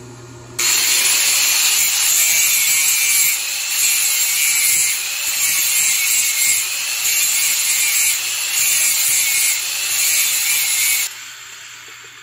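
Electric angle grinder running under load, grinding. It starts abruptly about half a second in, its strength and pitch wavering slightly as it is pressed on, and stops shortly before the end.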